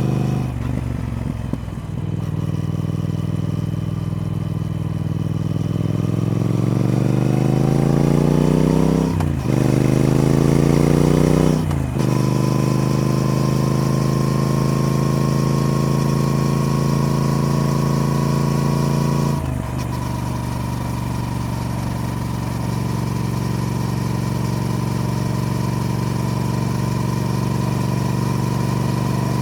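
Triumph Speed Twin's parallel-twin engine under way: running low and steady, then rising in pitch as it pulls up through the revs about six seconds in, with two short breaks for upshifts. It holds a steady note, then drops about twenty seconds in to a lower, steady run.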